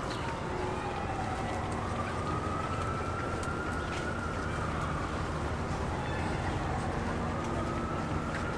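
An emergency vehicle's wail siren sounding in the distance of the city, its pitch sliding slowly down and up about every five seconds, over a steady low rumble of city traffic.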